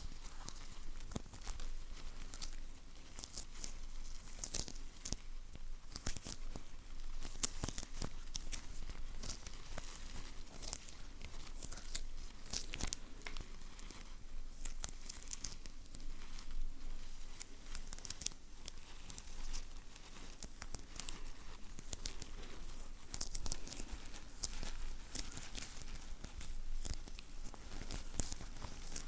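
Close-miked ASMR sticky sounds: a dense, continuous run of small crackling snaps, sticky material peeling and crinkling.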